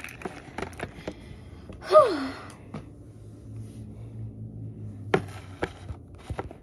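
A short voiced sigh from a girl, falling in pitch, about two seconds in. Around it come light clicks and one sharp tap a little after five seconds as toys and a box are handled on a table.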